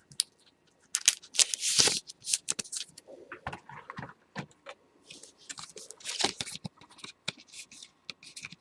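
Trading cards and their plastic wrappers and sleeves being handled: a string of short rustles, crinkles and scrapes, the busiest around two seconds in and again around six seconds in.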